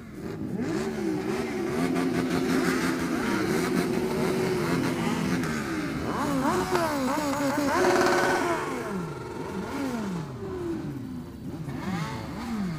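A vehicle engine revving again and again, its pitch rising and falling in repeated swells, with a few short stretches held at high revs.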